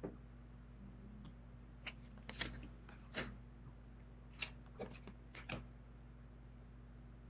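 Tarot cards being handled and laid onto the decks: a handful of short card slides and slaps, clustered from about two seconds in to past the halfway point, over a steady low hum.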